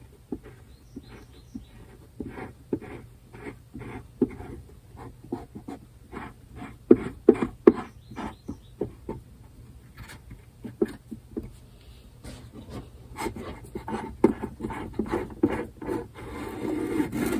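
A clamp being slowly unscrewed from a glued crack in a mandolin top: a long run of small irregular clicks and creaks as the knob turns, loudest about seven seconds in, then a scraping near the end as the wooden caul is lifted off. The pressure is coming off the fresh crack repair.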